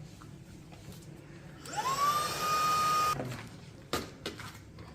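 Tineco cordless handheld vacuum motor switched on briefly: its whine rises quickly to a steady high pitch, runs for about a second and a half, then cuts off suddenly, followed by a couple of sharp clicks.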